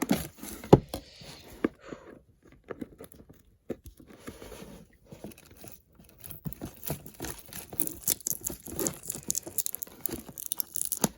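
Plastic shrink-wrap being torn and crinkled off a sealed trading-card box, with irregular sharp clicks and rustling, the loudest click about a second in.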